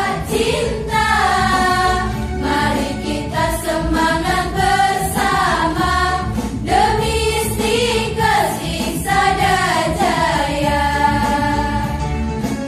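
A choir of young women singing a song together, with long held notes that glide between pitches.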